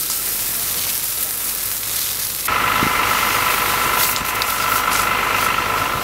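Burning brush crackling and hissing. About halfway through it switches abruptly to a louder, steady engine drone with a high whine and scattered clicks.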